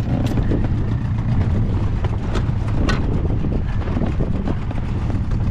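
Wind buffeting the microphone over a small boat on choppy open water, a steady low rumble, with two sharp clicks of gear being handled about two and a half and three seconds in.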